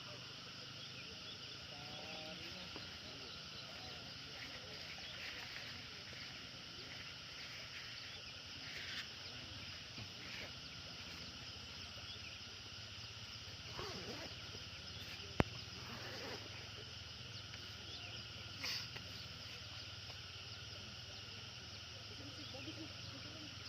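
Steady chorus of insects trilling in several overlapping high-pitched bands, with faint distant voices now and then and a single sharp click about fifteen seconds in.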